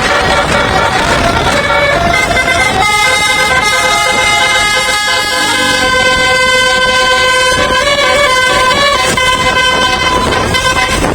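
Bus telolet musical air horn playing a tune: several horn notes sound together, each held and then stepping to new pitches every second or so, over a loud steady noisy background.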